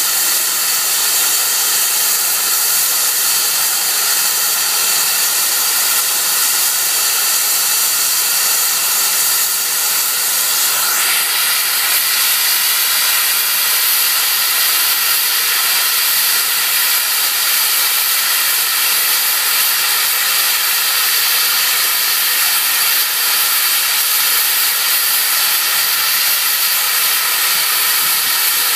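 SECR C Class 0-6-0 steam locomotive standing with steam hissing steadily and loudly. The hiss turns brighter and stronger about eleven seconds in.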